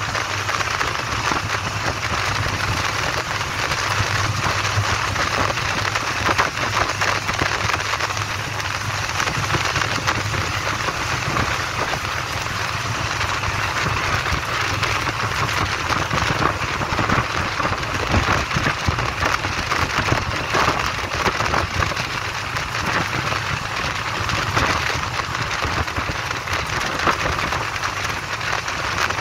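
Wind and road noise from a bus moving at speed, heard at a side window: a steady rushing with a low hum and constant fine crackling.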